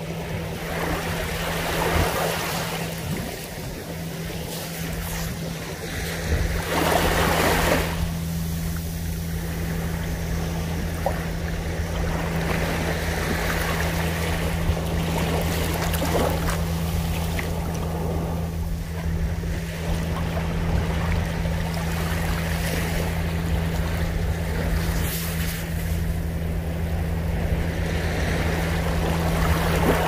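Small waves lapping onto a sandy beach, washing up over the sand and around rocks and drawing back, each wash swelling and fading every few seconds; the loudest comes about seven seconds in. A steady low hum lies underneath.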